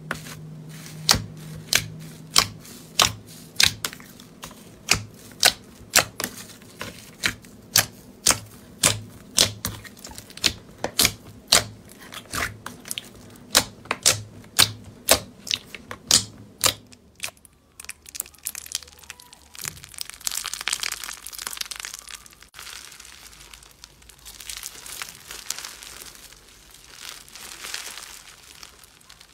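Hand pressing and poking white slime in a plastic tub, squeezing out sharp clicking pops about one and a half times a second. After about 17 seconds this gives way to an irregular crunchy crackling of bead-filled slime being stretched.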